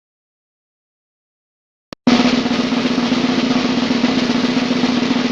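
About two seconds of silence, a brief click, then a loud snare drum roll that starts suddenly and keeps going steadily.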